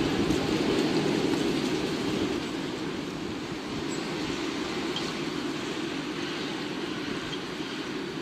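Steady rushing, rumbling wind noise that eases a little over the first few seconds.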